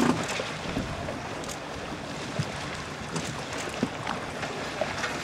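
Choppy water splashing and slapping around sailing boats, with wind noise. There is a brief knock right at the start.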